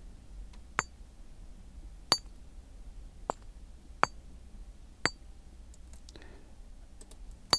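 A rock being struck, heard as six sharp clinking knocks spaced about a second apart, each with a brief high ping of ringing.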